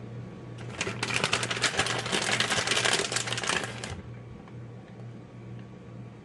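Rapid crackling rustle for about three seconds, starting about a second in: a plastic bag of shredded cheese being handled and shaken as cheese is layered onto macaroni.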